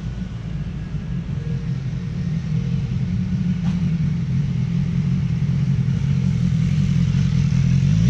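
Kawasaki motorcycle engine running at low speed, a steady low drone that grows gradually louder.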